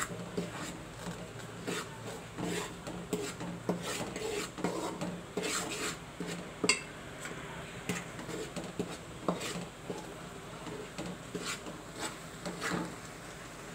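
Metal spoon scraping and clinking against the side of a metal pot in irregular strokes while rice flour is stirred into jaggery syrup.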